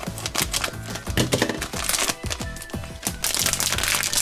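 Background music with a steady beat, over the crinkling of a foil blind bag as it is cut open with scissors and pulled apart.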